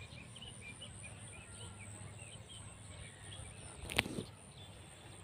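Small birds chirping faintly over a low outdoor background hum, with a single sharp click about four seconds in.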